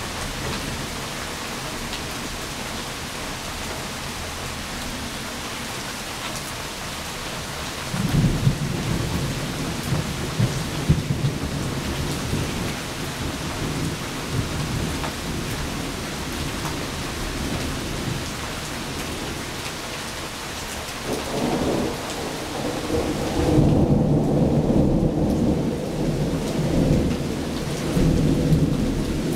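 Steady rain falling on a wet street, with two rolls of thunder: the first breaks suddenly about eight seconds in and rumbles for several seconds, the second builds about two-thirds of the way through and rumbles loudest near the end.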